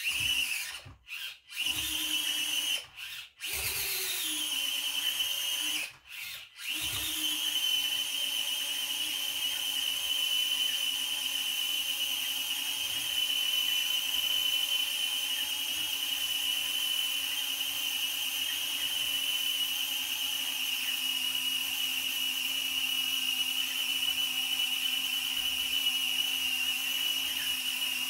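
Axial SCX24 Jeep mini crawler's small electric motor and geared drivetrain whining under load as it climbs a steep ramp. The whine cuts out and starts again a few times in the first seven seconds as the throttle is let off and reapplied. After that it runs on steadily, straining while the truck gains no more ground.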